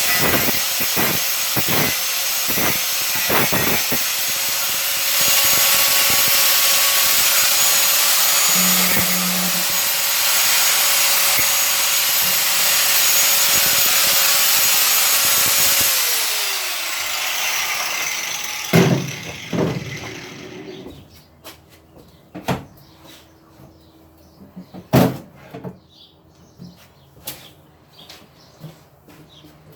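Angle grinder cutting through stuck rivets in a metal panel, running with a steady whine. About 16 seconds in it is switched off and winds down, falling in pitch. Scattered knocks and clicks follow, the loudest a few seconds after it stops.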